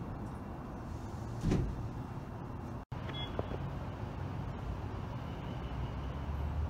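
Distant fireworks show heard from far off: a steady low rumble with one muffled boom about a second and a half in. The sound drops out for an instant near the middle.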